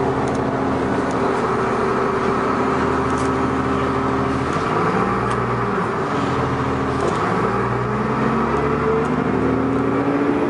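2002 New Flyer D40LF transit bus's diesel engine running, its pitch shifting about halfway through, then rising steadily over the last few seconds as it revs up.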